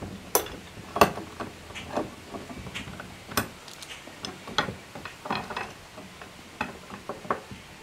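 Pipe clamp on half-inch iron pipe being cranked down by hand: irregular clicks and knocks from the clamp's handle and screw, spaced roughly a second apart.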